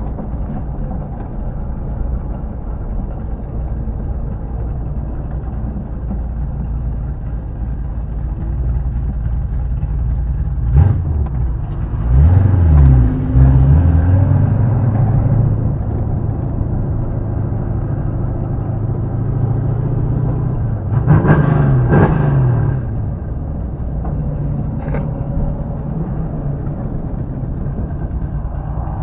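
A 1967 Camaro's engine rumbling at low road speed, heard from the car itself. Several quick revs come near the middle, and one more comes about two-thirds of the way in.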